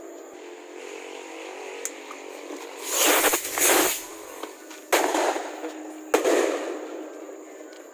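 Fireworks and firecrackers going off: a hissing burst lasting about a second some three seconds in, then two sharp bangs a little over a second apart, each followed by a fading echo.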